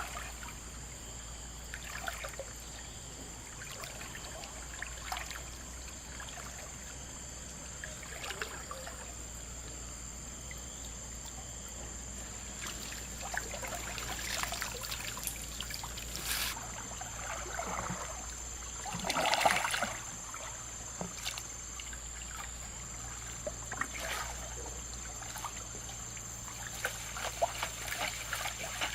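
River water trickling and splashing, with scattered sharper splashes; the loudest comes about two-thirds of the way through.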